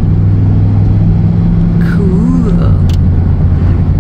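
Car engine and road noise while driving, a loud steady low drone whose note shifts slightly about two and a half seconds in.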